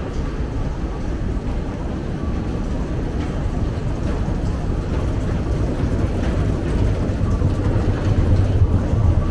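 Steady low rumble of a long metro escalator's drive machinery, growing louder toward the end as the escalator is reached.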